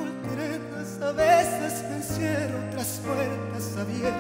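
Live band accompaniment to a pop ballad, with held bass notes and chords, and a man's voice singing a wordless, wavering line with vibrato over it.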